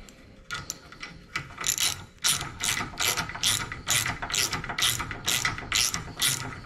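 Hand socket ratchet clicking as it is worked back and forth on a bolt. A few scattered clicks come first, then steady ratcheting strokes from about two seconds in, roughly two or three a second.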